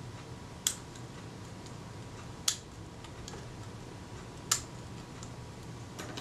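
Small sharp clicks from the partly assembled Kodak Retina IIIc camera body and its parts being handled, three distinct ones about two seconds apart with a few fainter ticks between, over a low steady hum.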